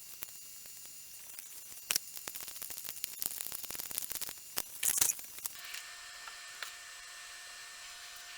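Light clicks and small metallic rattles of small hardware being handled, with a brief hiss near five seconds in, then a faint steady hum.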